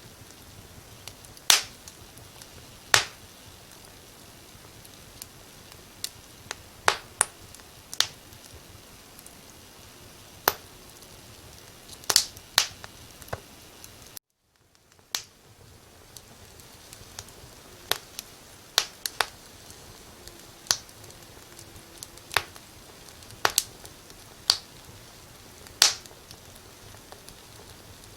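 Burning firewood in a fireplace crackling: irregular sharp pops and snaps, some much louder than others, over a faint steady hiss. The sound cuts out for about a second midway, then returns.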